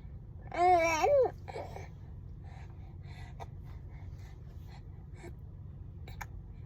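A four-month-old baby vocalizing: one loud, high-pitched drawn-out call that rises and then falls, starting about half a second in, followed by faint little mouth sounds and breaths.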